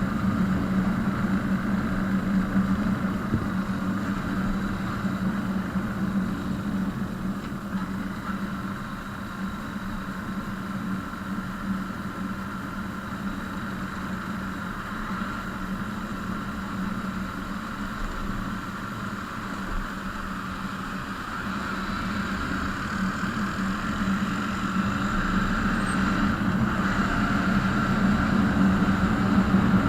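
A motor vehicle's engine running steadily. It eases off in the middle and builds up again toward the end.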